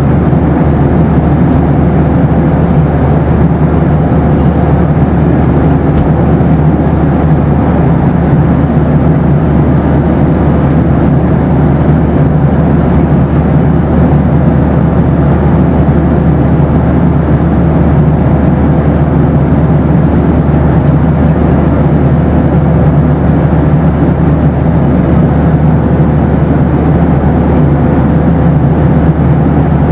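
Boeing 737 cabin noise in flight: a steady, low rush of engine and airflow noise, with a faint steady tone running through it.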